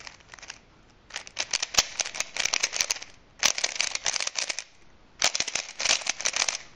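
A 3x3 Rubik's cube clicking and clattering as its layers are turned in rapid fingertricks (flicks and pushes) while the E-perm algorithm is performed at speed. The turning comes in three quick runs with short pauses between them.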